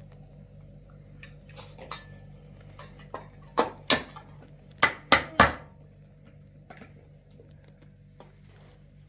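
Dishes and cutlery clattering: light clinks, then five sharp, loud clinks and knocks in quick succession around the middle, over a steady low hum.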